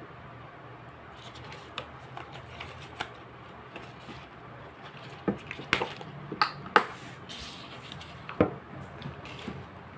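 Sharp clicks, taps and rustles of hands picking Java plums (duhat) off their stems and handling the leafy branches on a plate. They come more often and more loudly in the second half.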